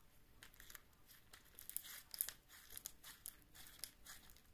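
Store-bought slime being squeezed and pulled apart in the hands: faint, irregular sticky crackles and small pops.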